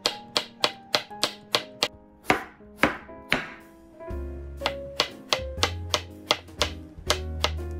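Kitchen knife slicing through cucumber onto a wooden cutting board: quick, evenly spaced chops about three or four a second, over background music whose bass comes in about four seconds in.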